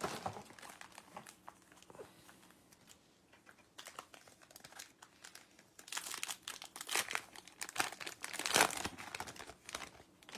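A foil trading-card pack being torn open, its wrapper crinkling and crackling in bursts for a few seconds from about six seconds in, after a few faint rustles.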